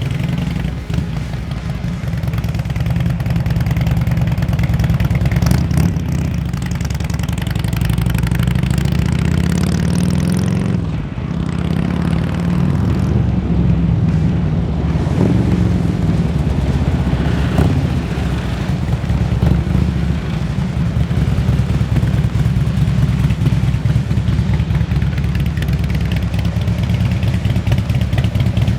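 Harley-Davidson Street Glide V-twin engine running under way, its pitch rising and falling with the throttle, with a brief drop and change in pitch about eleven seconds in. The motor has just been rebuilt and is running well.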